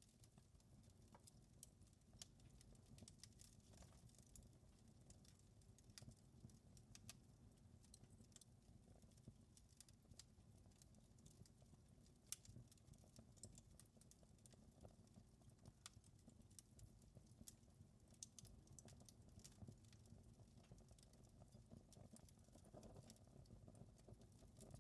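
Wood fire crackling faintly in a fireplace: irregular small pops and snaps, a few sharper ones, over a low steady rumble of the flames.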